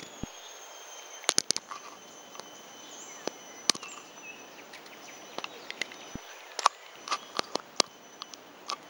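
Outdoor ambience under a tree canopy: a faint, steady high-pitched insect drone, broken by scattered sharp clicks and ticks, a quick cluster about a second in and more through the second half.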